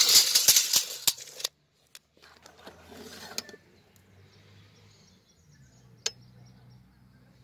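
Steel tape measure blade retracting into its case with a loud clicking rattle that stops abruptly after about a second and a half. A softer scraping rattle follows as the blade is drawn back out, then one sharp click near the end.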